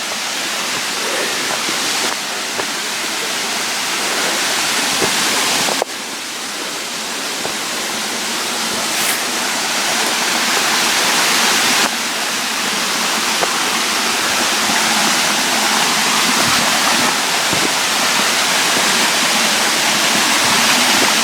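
Waterfall rushing steadily, a dense, even roar of falling water.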